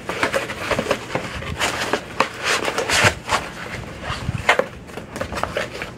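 Packaging being handled: irregular rustling and crinkling with light knocks as items are moved and packed into a box.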